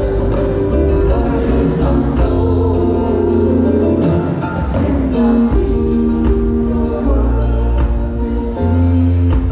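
Live music: a choir singing held notes over a band with a heavy bass and drums.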